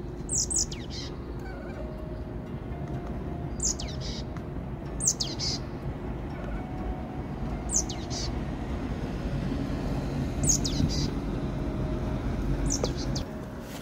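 A small bird repeating a short, high call that sweeps quickly downward, about six times at intervals of a couple of seconds, over a steady low background rumble.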